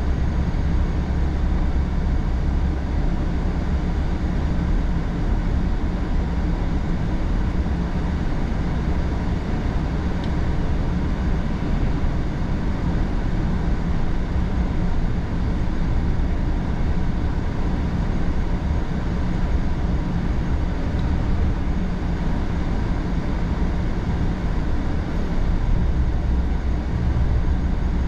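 Steady drone of a car driving on the road, engine and tyre noise heard from inside the cabin, with a deep low rumble.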